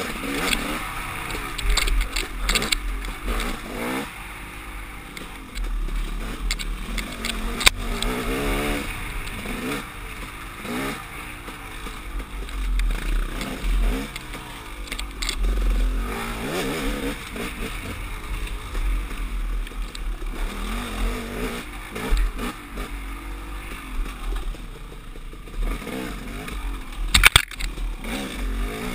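KTM 300 XC-W two-stroke dirt bike engine revving up and down on throttle over a rough woods trail, with low rumble on the helmet-camera microphone. Scraping and clattering knocks come through, one sharp knock about eight seconds in and a loud cluster near the end.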